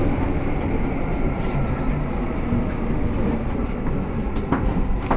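Seibu 2000 series electric train running, heard from inside the front car as it rolls along the platform into the terminus: a steady low rumble, with a few sharp clicks about four to five seconds in.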